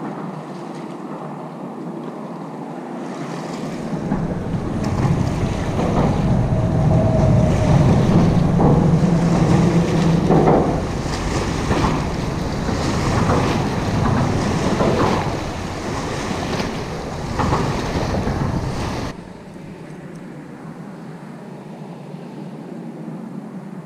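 Small waves slapping and splashing against a concrete embankment, in repeated surges, with wind rumbling on the microphone. It cuts off suddenly about four-fifths of the way in, leaving a quieter steady hiss.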